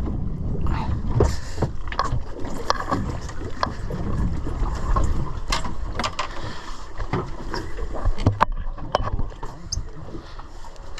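Sounds aboard a fishing boat on the water: a steady low rumble with scattered knocks and clatter of gear on deck.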